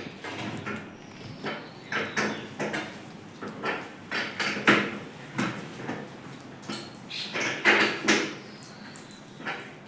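Irregular metallic clanks, clicks and scrapes of a spanner and loose metal parts being handled while an air conditioner unit is taken apart. The louder knocks come about halfway through and again near the end.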